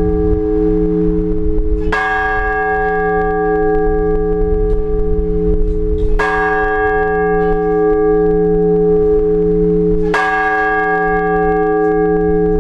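One large Orthodox church bell tolled slowly, three strokes about four seconds apart, each ringing on into the next. A single bell struck at an even pace is the blagovest, rung to call people to the all-night vigil.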